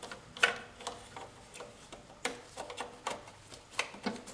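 Irregular sharp clicks and taps of metal on metal as the old thermostat is worked loose from its housing by hand, the loudest about half a second in.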